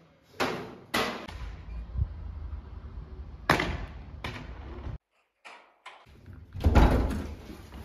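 A few sharp thuds, two in the first second and two more around three and a half to four seconds in, over a low rumble, then a louder burst of noise near the end.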